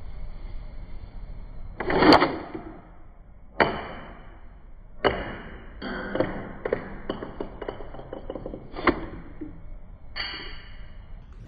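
Plastic action of a 3D-printed Thompson 1928 model being worked by hand: a handful of sharp plastic clacks a second or two apart, the loudest about two seconds in, with a run of small quick clicks in the middle.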